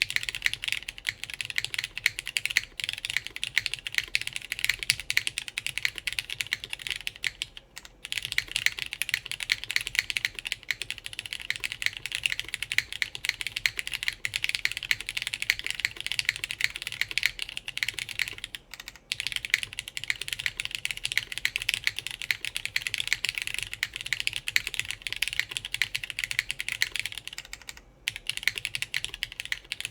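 Fast, continuous typing on a custom mechanical keyboard with lubed Cherry MX Black linear switches, mounted plateless on an FR4 PCB with GMK keycaps. It gives a dense run of key strikes, broken by three brief pauses.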